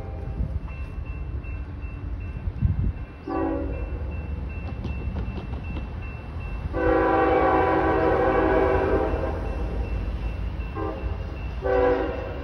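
Locomotive air horn sounding a multi-note chord in separate blasts: a short one about three seconds in, a long one of about three seconds in the middle, then two short blasts near the end, over a steady low rumble. A single low thump comes just before the first blast.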